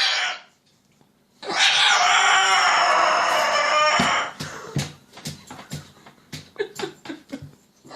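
Parrot giving one loud, drawn-out screech of about three seconds, followed by a scatter of short sharp clicks.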